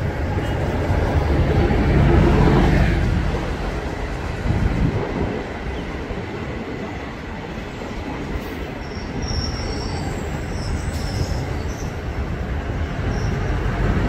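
Diesel-electric multiple unit (DEMU) train passing on a curved track, a steady rumble of engine and wheels on rails that is loudest about two seconds in as the front power car goes by. Later, faint high wheel squeal comes from the coaches on the curve.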